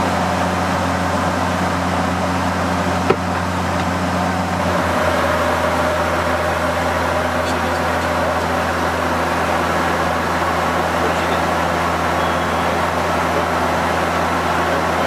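Steady cabin drone of the Bombardier Dash 8 Q400's turboprop engines and six-bladed propellers in flight, heard on the flight deck: a low even hum under a rushing noise. A single short click about three seconds in.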